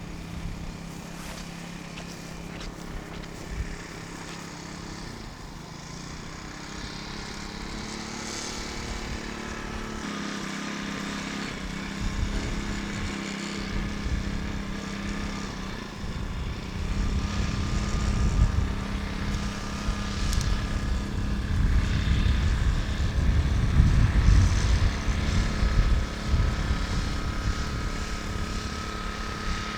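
Small fishing boat's engine putt-putting steadily, growing louder and peaking about 24 seconds in as the boat draws closer.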